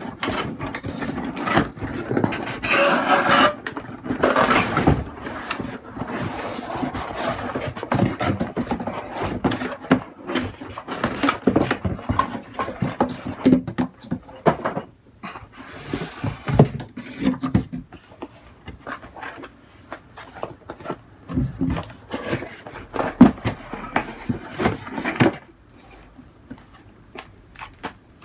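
Packaging and camcorder accessories being handled during unboxing: rustling, scraping and rubbing with many sharp clicks and knocks, going quiet shortly before the end.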